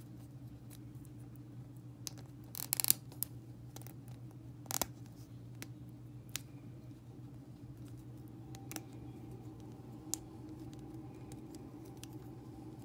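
Small slot car parts handled and fitted into a plastic chassis: sharp clicks and taps, loudest as a quick rattle of clicks about two and a half seconds in, with single clicks scattered after, over a steady low hum.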